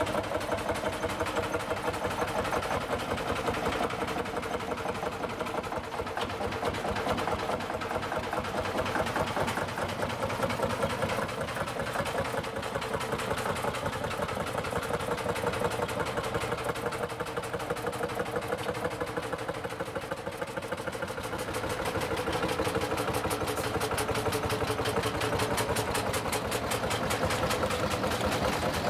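Lanz Bulldog's single-cylinder two-stroke hot-bulb engine idling with a fast, even beat of firing strokes.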